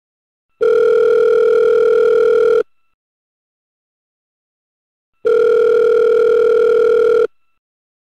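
Telephone ringing twice. Each ring is a steady electronic tone with a slight flutter, lasting about two seconds, with a pause of roughly two and a half seconds between rings.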